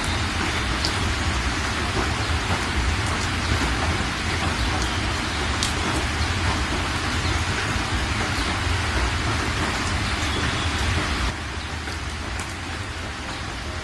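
Steady, dense hiss of rain with a low rumble underneath. It drops suddenly to a quieter level about eleven seconds in.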